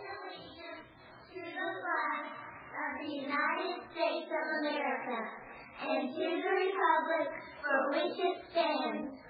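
Children's voices singing together, phrase by phrase with short breaks between phrases.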